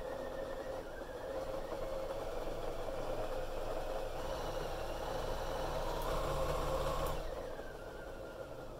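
Pfaff Creative 7550 sewing machine running under the control of a 3D-printed potentiometer foot pedal, its motor and needle mechanism whirring steadily. It gets louder for a moment near the end, then drops away sharply about seven seconds in as the pedal is eased off.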